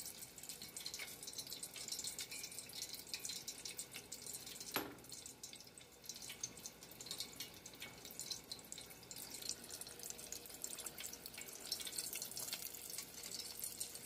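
Chicken frying in a pot of hot oil: a steady crackling sizzle of many small pops, with one sharp click about five seconds in.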